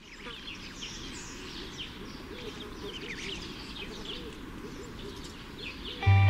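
Outdoor ambience of many small birds chirping in quick, short calls over a low, even background rumble, fading in at the start. About six seconds in, loud music with a deep bass note comes in abruptly.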